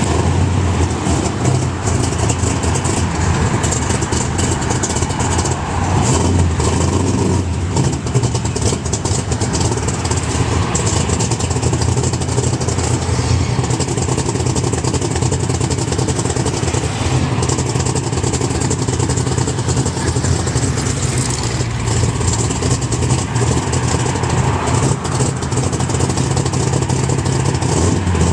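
Ford Mustang Boss 429's 429 cubic-inch V8 running steadily with a deep, even exhaust note and only small swells in engine speed.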